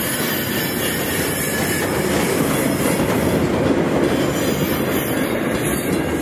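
Freight train's louvre-van wagons rolling past on the track: a steady, loud rumble and rattle of steel wheels on rail as the last wagons go by.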